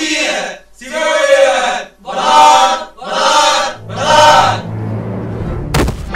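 A chorus of voices chanting in short phrases of about a second each, with brief breaks between them. After about four and a half seconds the chanting gives way to a low, steady musical drone, and a single sharp knock sounds near the end.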